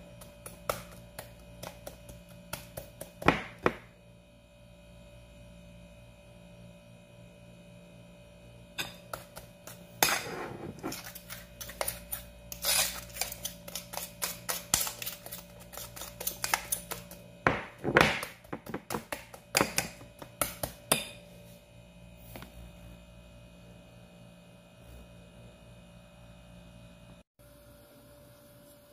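A fork clinks and scrapes against a ceramic bowl as banana pancake batter is mixed, in runs of quick taps with a pause between them. A steady low hum runs underneath and is all that is left near the end.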